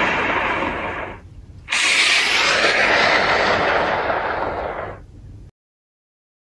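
A recorded sound effect: a loud, steady rushing noise that cuts off about a second in, then a sudden loud blast-like rumble that fades away over about three seconds.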